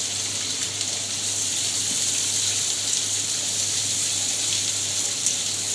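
Sliced onions frying in hot oil in a pan, giving a steady, even sizzle.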